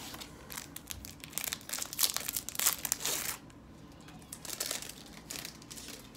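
Plastic wrapper of a Topps Opening Day baseball card pack crinkling and tearing as it is opened by hand, loudest in the first three seconds, with a shorter bout of crinkling about four and a half seconds in.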